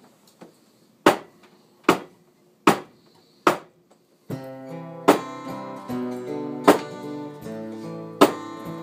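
Acoustic guitar song opening: four sharp percussive hits at an even beat, then strummed chords begin about four seconds in at the same tempo, each beat accented.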